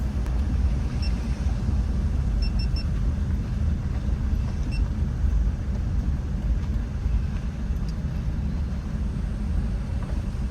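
Steady low rumble of a car driving, the road and engine noise heard from inside the car.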